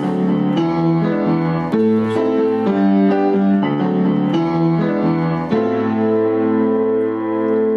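Piano music: a repeating figure of notes and chords, then a new chord struck about five and a half seconds in and held.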